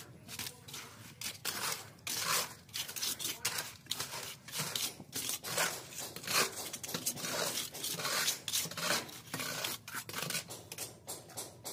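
Steel mason's trowel scraping and patting wet cement-and-aggregate mortar in many quick, irregular strokes.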